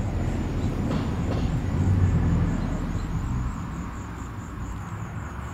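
Low outdoor rumble that swells about two seconds in and then eases off, with the character of road traffic or wind.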